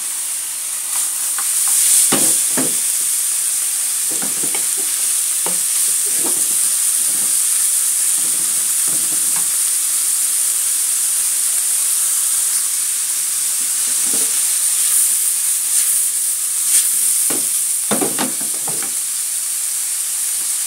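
Shrimp with chilies and sliced shallots sizzling in a wok, a steady frying hiss, with a wooden spatula scraping and tossing against the pan in irregular strokes, most clearly about 2 seconds in and near the end.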